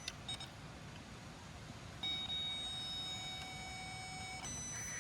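Electric fuel pump switched on about two seconds in, running with a steady whine that shifts higher near the end. Powered directly, the pump runs, so the no-start lies in its missing turn-on signal.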